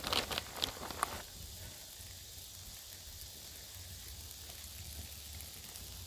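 Tortillas and butter sizzling steadily in a cast iron skillet over a campfire, with a cluster of sharp crackles in the first second.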